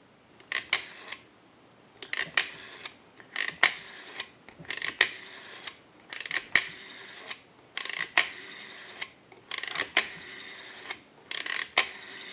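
Rotary dial of an AT&T 323 candlestick telephone being dialed digit after digit, about eight in a row: each pull of the finger wheel brings a burst of clicks, then it spins back on its own. The repaired dial is returning smoothly and pulsing properly into the line analyzer.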